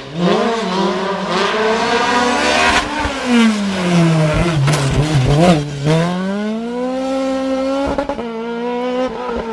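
Race car engine revving hard up a hill-climb course. It climbs in pitch again and again, with a sharp drop at each gear change or lift for a bend.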